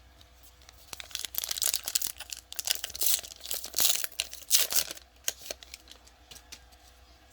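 A trading-card pack wrapper being torn open and crinkled: a run of crackling rips and rustles for about four seconds, followed by a few light clicks and taps as the cards are handled.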